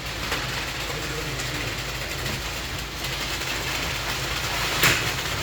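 A heavy engine running steadily, with a single sharp knock about five seconds in.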